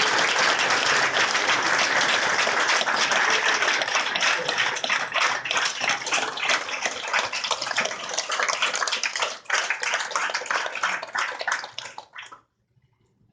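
Audience applauding: a dense wash of clapping that thins out over the last few seconds and stops about twelve seconds in.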